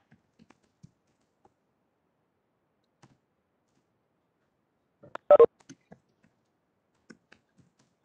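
Scattered faint clicks and taps, with a loud double knock about five seconds in.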